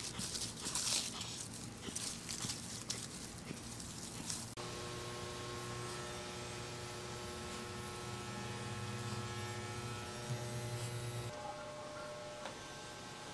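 Rustling and light clicks, then, from about four and a half seconds in, a steady electrical hum with several held tones that drops away near the end.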